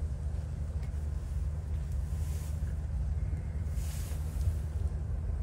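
Wind rumbling on the microphone, with brief hissing gusts about two and four seconds in.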